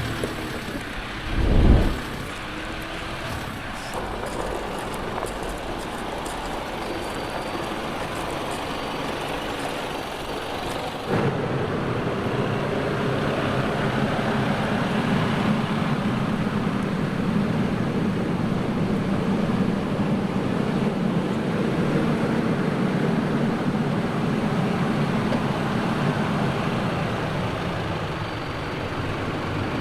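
Heavy off-road truck engine running while driving, with a short loud thump about two seconds in. About eleven seconds in the sound changes abruptly to a louder, steadier low engine drone.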